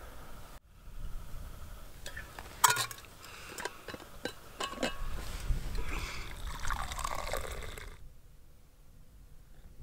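Steel vacuum flask being handled, with sharp clicks and clinks of its stopper and metal cup, then coffee poured from the flask into the cup for about three seconds before the pour stops.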